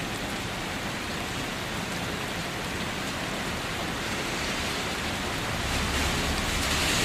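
Steady rain falling on a wet concrete yard, an even hiss that grows louder near the end.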